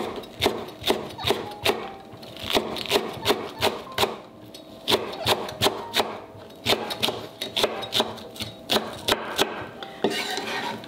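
Chef's knife slicing a green onion on a wooden cutting board: sharp knocks of the blade on the board, about three a second, with a brief pause about four seconds in.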